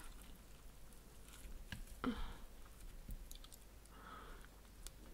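Close-miked chewing and wet mouth sounds of someone eating bean sprouts and fried spring rolls, with soft scattered clicks. A louder wet mouth sound comes about two seconds in and a smaller one about four seconds in.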